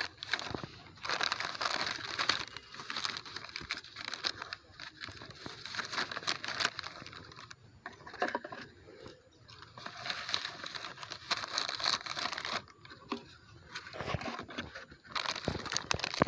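A plastic bag crinkling and crackling as it is handled, in bursts of a few seconds with short pauses between.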